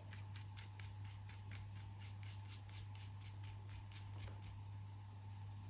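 Paintbrush spreading matte medium over a shed python skin in quick, short scratchy strokes, about four a second, stopping a little after four seconds in. A steady low hum runs underneath.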